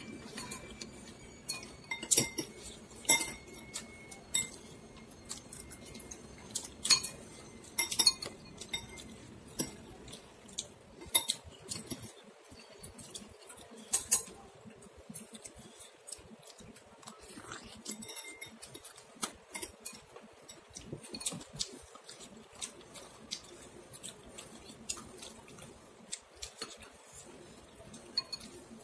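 Chopsticks and a white Asian soup spoon clinking and scraping against a white bowl of noodle soup while eating: irregular sharp clinks, with a few louder knocks in the first half.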